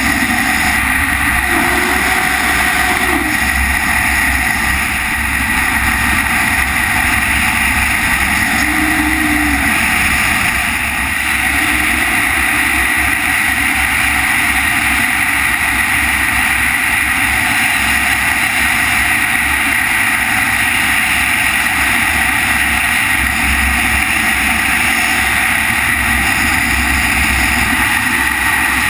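Steady, loud wind noise of wingsuit freefall: the rushing air buffets a helmet-mounted camera's microphone, with a gusty low rumble underneath.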